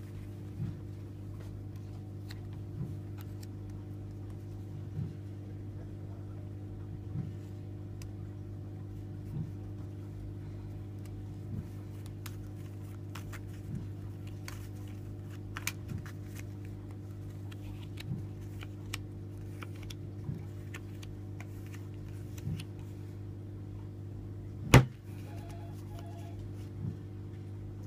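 Playing cards being handled, spread and laid down on a cloth mat: scattered light clicks and snaps, with one sharp loud click near the end. Under them runs a steady electrical hum with faint soft knocks about every two seconds.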